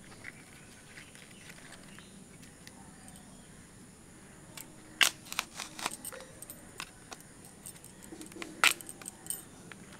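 Sharp, crisp snaps and clicks as the bracts and florets of a fresh banana flower are pulled apart by hand. There are a few in quick succession about five seconds in and a loud single one near the end.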